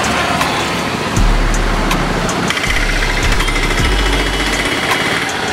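Road traffic, with a motor scooter's engine running as it passes close by.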